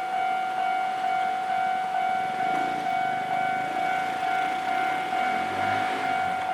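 Japanese railway level-crossing warning bell ringing: an electronic ding-ding alarm repeating steadily at about two strikes a second. A low rumble rises under it in the middle.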